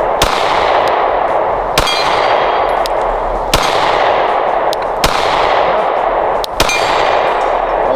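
A string of 9mm shots from a Glock 43X pistol, roughly one a second, with steel plate targets clanging and ringing on the hits. A steady hiss runs underneath.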